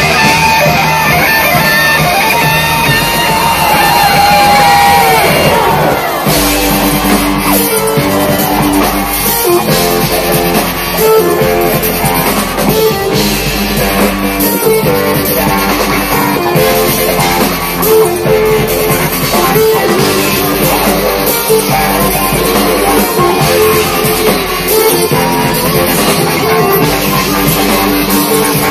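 Live electronic rock band playing loud through a big PA, heard from within the crowd. Gliding lead lines carry the first few seconds. About six seconds in, a heavy bass and a steady beat come in under a repeating keyboard pattern.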